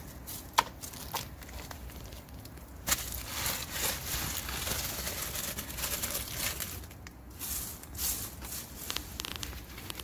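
Acorn shells cracking and crunching as a round millstone is pressed and rolled over acorns spread on concrete. A few single sharp cracks come first, then dense crackling from about three seconds in.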